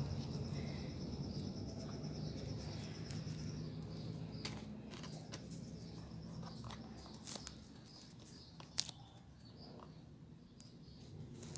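Hands handling a black plastic grow bag of soil: faint scattered clicks and rustles, with one sharper click about nine seconds in. A low rumble and a faint high tone fade away in the first few seconds.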